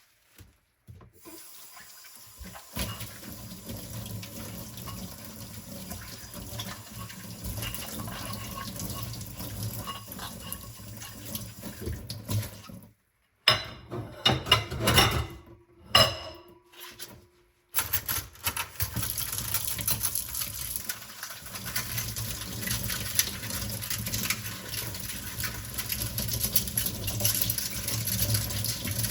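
Tap water running into a kitchen sink while dishes are washed by hand. About halfway through come clinks and knocks of dishes, with two brief breaks to silence. The water runs louder for the last third.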